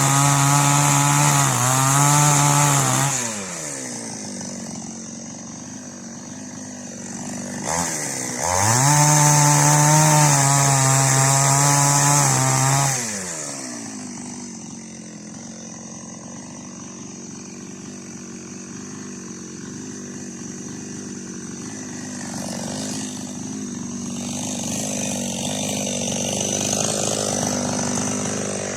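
Preco two-stroke chainsaw with an 18-inch bar run at high revs for about three seconds, dropping back to idle, then revved hard again for about four seconds before settling to a steady idle for the rest.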